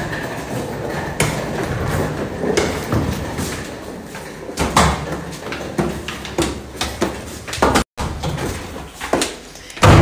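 A series of sharp knocks and thumps over a rustling, hissing background.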